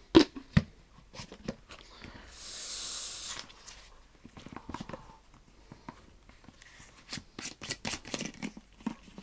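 Hands handling and fastening small outdoor gear: two sharp clicks at the start, a hissing rustle lasting about a second, then a quick run of light clicks and knocks near the end.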